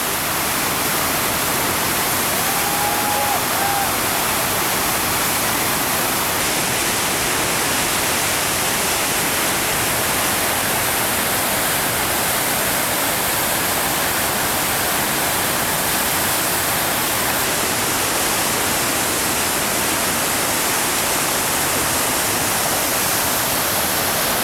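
Steady rush of a whitewater rapid running at high water.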